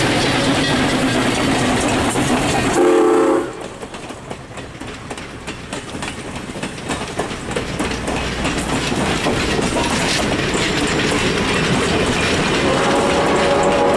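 Steam locomotive CN 7470 working past loudly, with a short pitched whistle blast about three seconds in that cuts off suddenly. Its passenger cars then roll by with wheels clicking over the rail joints, and a steady tone comes in near the end.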